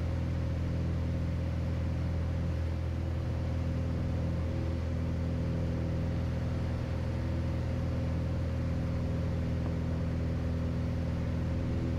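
Piper Turbo Arrow's turbocharged six-cylinder engine and propeller droning steadily at climb power, heard inside the cabin.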